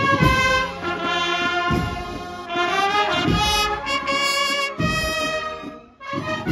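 A marching brass band of trumpets playing a processional march in held chords, over a low beat about every second and a half. The music breaks off briefly near the end and starts again.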